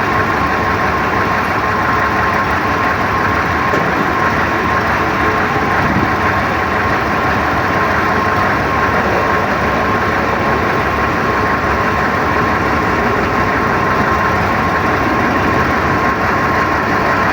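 Engine running steadily at idle, with a steady high whine over it.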